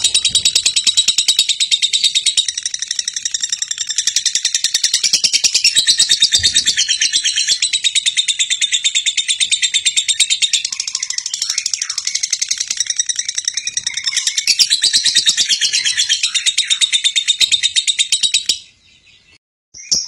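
A lovebird's long, unbroken chattering song: a very fast run of high twittering notes, the nonstop 'konslet' chatter prized in Indonesian lovebird keeping. Near the end it stops for about a second.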